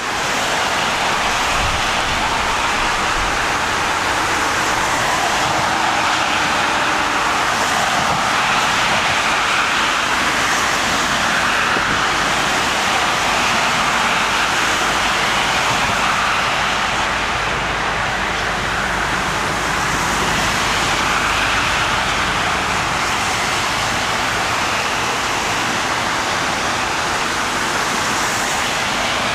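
Steady rushing noise of a Boeing 767-400ER jet's engines and airflow on its approach to land, even in level throughout.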